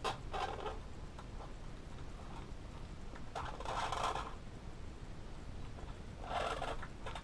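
Three short scraping, rasping noises as a hot glue gun is worked along the seam of a foam-board model fuselage. The loudest comes about four seconds in.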